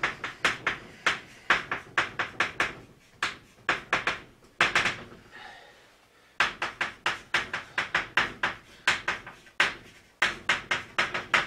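Chalk writing on a blackboard: runs of quick, sharp taps and scratching strokes as characters are written, in four groups with short pauses between them.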